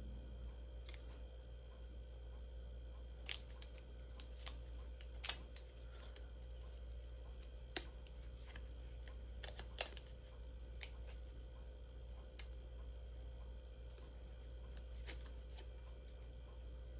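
Sharp light clicks and taps of a glue dot roll and a cardstock strip being handled, as glue dots are pressed onto the paper every few seconds, the loudest about five seconds in. A steady low hum runs underneath.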